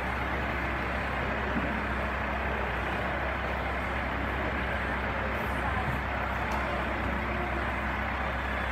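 Modern farm tractor's diesel engine running steadily, a constant low hum with no change in speed.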